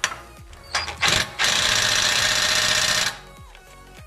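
Impact gun working on an exhaust bolt: a short blip about a second in, then a steady rapid hammering for nearly two seconds that cuts off suddenly as the gun dies.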